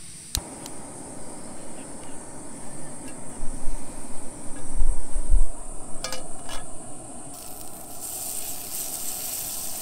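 Canister camping stove lit with a single click, then the gas burner's steady rushing flame. A few light clinks about six seconds in, and margarine starts to sizzle in the pan near the end.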